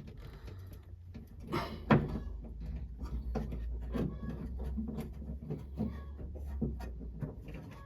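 Small, irregular metal clicks and scrapes of a pick prying at the retaining clip of a 1966 Ford Mustang door handle inside the door, with one sharper click about two seconds in.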